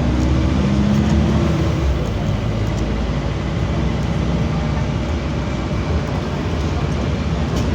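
Scania bus's diesel engine running with the bus under way: the engine note shifts over the first couple of seconds, then holds a steady drone over road noise.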